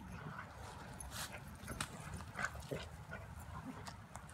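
Faint sounds of a Rottweiler puppy and a pit bull play-fighting, with scattered short clicks and scuffles over a steady low rumble.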